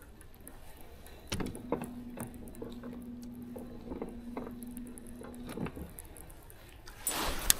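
Baitcasting reel being cranked: a steady low whir with light ticks for about four seconds, then a short louder swish ending in a sharp click near the end.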